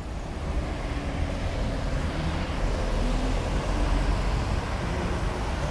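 Road traffic on a city street, with cars driving past close by. Their engines and tyres make a steady low rumble that grows louder about half a second in.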